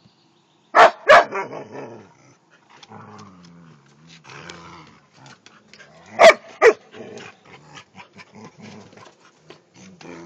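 Two dogs, a border collie and a black-and-tan dog, play-fighting. There are two sharp barks about a second in and two more about six seconds in, with low growling in between.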